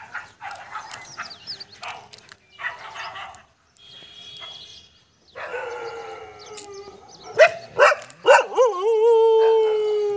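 A dog howling: long drawn-out howls that slide in pitch and then hold steady for a few seconds, rising again near the end. Short barks and yelps come in the first few seconds.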